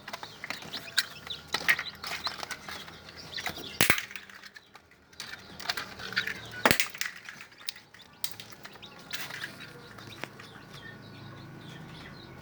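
Newly hatched kampung chicks peeping in short, high, repeated calls, with scattered light rustling and two sharp knocks, about four seconds and seven seconds in.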